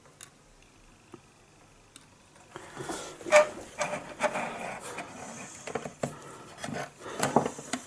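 Small clicks, taps and scrapes of fine metal tweezers and a plastic model kit being handled on a cutting mat. Only a few faint clicks at first, then a busy run of knocks and rubbing from about two and a half seconds in, the loudest knock just after three seconds.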